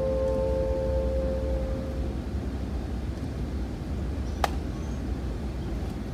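The final held chord of the saxophones and piano fades away over about two seconds. After it there is only a low hall hum and one small sharp click.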